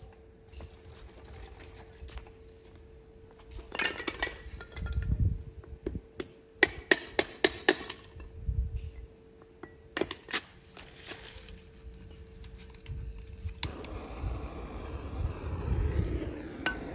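Kitchenware clinking and knocking, with a quick run of sharp clinks about halfway through. A rushing noise comes in near the end.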